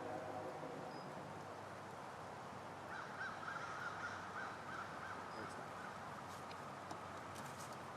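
Steady outdoor background noise, with a faint wavering call from about three to five seconds in.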